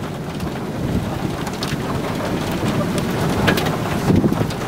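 Strong wind and rain of a tornado-producing thunderstorm: a dense low rumble of wind with rain, and a few faint sharp ticks of drops striking.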